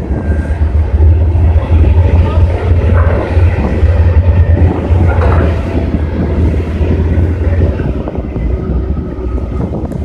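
Low, steady engine rumble from amphibious bridging vehicles running on the river, with wind on the microphone. The rumble eases off about eight seconds in.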